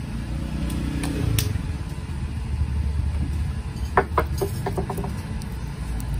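Steady low rumble, with a quick run of about half a dozen light clicks about four seconds in.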